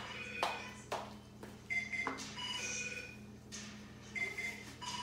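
Short, steady electronic beeps at a few different pitches, mixed with sharp clicks and knocks.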